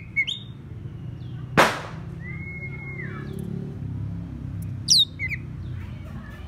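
Oriental magpie-robin, used as a decoy bird, calling to draw rival birds. There is a short chirp at the start, then a single loud harsh burst about a second and a half in. A level whistled note follows just after two seconds, and a few quick, sharp, falling notes come about five seconds in, all over a low steady hum.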